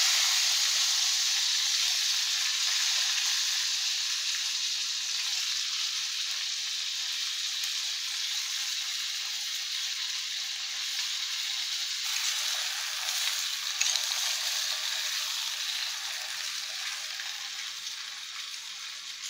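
Sliced white eggplant sizzling in hot oil in an earthenware pot, a steady hissing sizzle that is loudest at first and slowly dies down.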